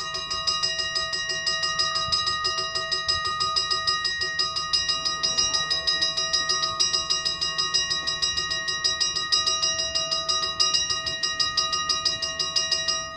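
Mechanical level-crossing warning bells ringing in fast, even strokes, warning of an approaching train while the barriers lower. The ringing starts suddenly and cuts off near the end, once the barriers are down.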